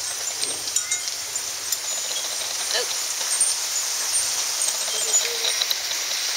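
Steady rain falling, a continuous hiss with many small drop ticks pattering on surfaces. No thunder is heard.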